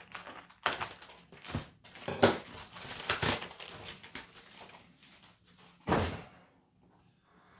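Cardboard mailer being pulled open and handled: rustling and scraping with several knocks, the loudest about two seconds in, and another thump about six seconds in.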